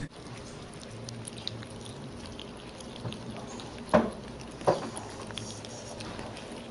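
Quiet wet clicks and drips as baby sloths eat green beans from a bowl of liquid. Two sharper smacks come about four seconds in, half a second apart.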